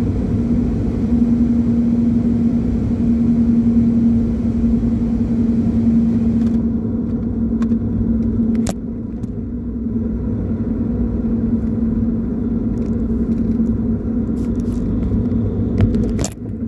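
A running truck heard from inside the cab: a steady low rumble with a constant hum. The hiss above it drops away about six seconds in, and a couple of sharp clicks come later.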